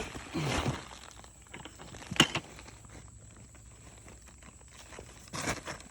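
Scattered rustles and knocks of hands digging through loose soil from a bucket of potatoes, with one sharp knock about two seconds in.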